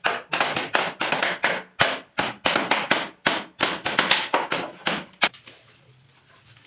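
Repeated sharp blows struck on wood, about three a second, typical of hammering or mallet work in door making; they stop a little after five seconds in.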